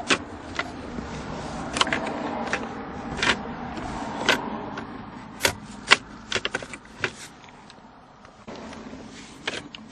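Plastic shift-lever bezel and center-console trim of a car being worked loose and handled: a scattering of sharp clicks and taps at irregular times, over a low hum that is strongest in the first half.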